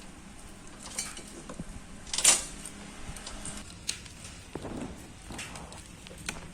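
Scattered light metallic clinks and taps of metal tools and parts being handled, with one sharper click about two seconds in.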